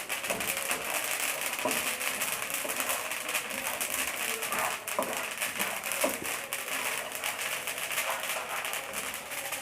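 Flaxseeds crackling and popping as they dry-roast in a hot pan, a dense run of small ticks and snaps; this crackling is the sign that the seeds are roasted.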